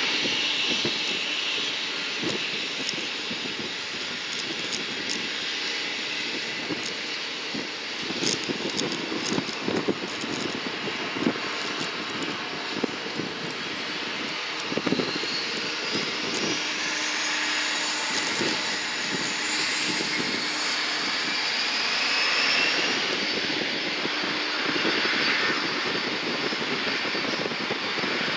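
Airplane engines running at an airport, a steady loud rush with scattered crackles in the middle and a high whine that climbs in pitch about two-thirds of the way through.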